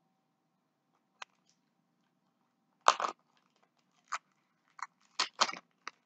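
Hard plastic clicks and knocks from a handheld cordless vacuum's filter and housing being handled and fitted together, about seven sharp taps with the loudest a double knock about three seconds in.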